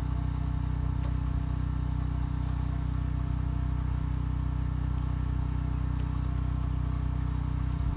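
Steady low mechanical hum of an engine-driven machine running, with no change in pitch or level; a faint light tick about a second in.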